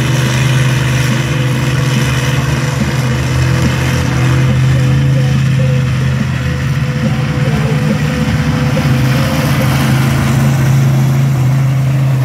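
Monster truck's engine running steadily at low revs as it drives slowly, a loud, even drone with no revving.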